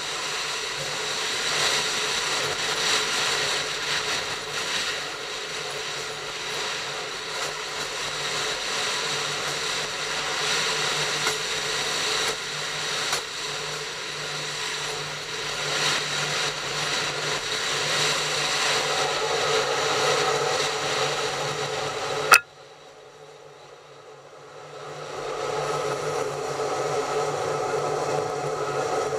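Train running along the track, heard from a camera riding on it: steady running noise with a low hum. About 22 seconds in it cuts off with a sharp click and stays much quieter for about three seconds before coming back.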